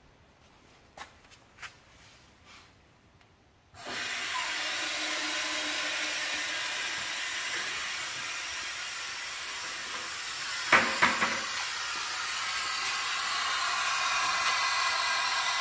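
Air hissing steadily into a Harvest Right freeze dryer's vacuum chamber through the opened drain valve and hose, releasing the vacuum at the end of a run. A few faint clicks come before it; the hiss starts suddenly about four seconds in, and a few quick knocks sound about eleven seconds in.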